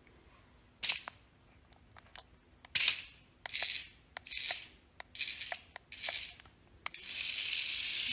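A cat hissing defensively in a series of short hisses about a second apart, ending in one longer hiss near the end. A few light clicks come between the hisses.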